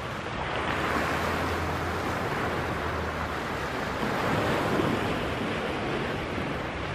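Steady rushing noise with no distinct events, a little louder from about a second in.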